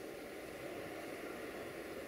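Distant intermodal freight train of container wagons rolling past: a steady, even wash of wheel and wagon noise.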